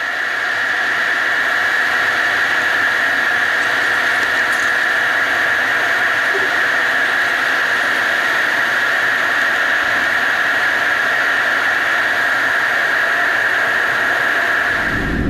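Boeing 757 jet engines heard from inside the cabin: a steady high-pitched whine over a hiss, with little low rumble.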